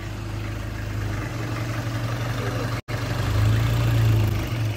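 A steady low engine hum, like an engine idling, with a brief dropout just before three seconds in.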